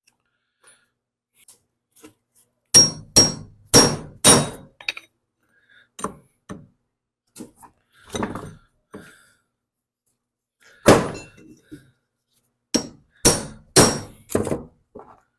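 Hammer blows on the metal of a cast-iron mower-deck blade spindle, in two quick runs of four strikes with a few single knocks between. The work is to drive out the spindle's worn bearings.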